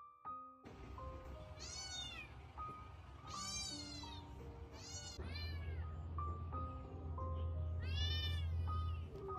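A small tabby kitten meowing four times, each a high call that rises and falls, over soft piano music.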